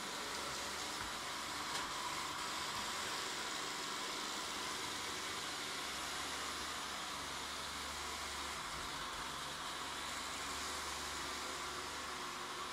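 Vorwerk VR200 robot vacuum running as it drives across a laminate floor: a steady hiss from its suction fan and brushes. There is one light click a couple of seconds in.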